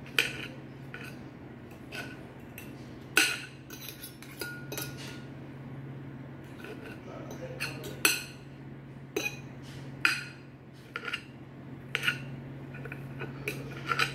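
Metal knife and fork clinking and scraping against a plate while cutting up boiled chicken breast: irregular sharp clinks about once a second, over a steady low hum.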